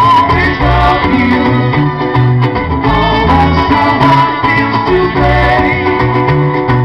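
Amplified live band playing: a trumpet carries a wavering melody over strummed acoustic guitar, a repeating electric bass line and cajon.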